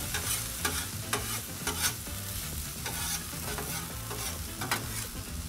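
Diced potatoes sizzling on a Blackstone griddle's flat top while two metal spatulas scrape underneath and turn them, with irregular short scrapes over a steady sizzle.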